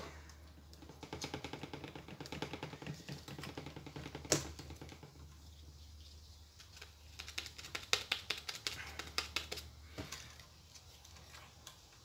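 Rapid, faint clicking and rattling from small TV speaker units and their plug and wires being handled, in two runs, with a sharper click near the middle. A steady low hum runs underneath.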